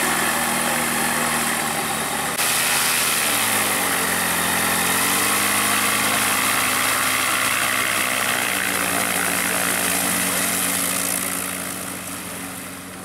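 Light propeller aircraft's piston engine running at low power on the ground, the note dipping and rising again a few seconds in and shifting once more later. Near the end it fades as the plane taxis away.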